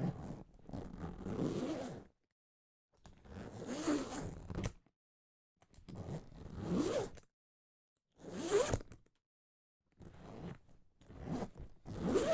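A zipper being pulled open and closed over and over: about six separate zips, each one to two seconds long, with short silences between them; the last ones near the end come in quicker short pulls.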